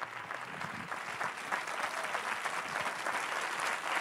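Audience applauding, a dense steady clapping that grows a little louder over the seconds.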